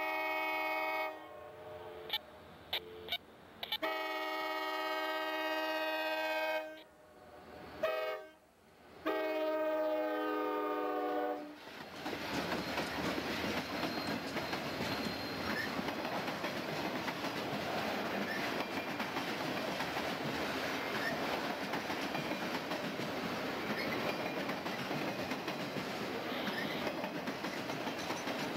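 A CSX diesel freight locomotive's multi-note air horn blows long and short blasts, ending in a long blast about twelve seconds in. After that the locomotives and a string of autorack cars roll past, with a steady rush of wheels on rail.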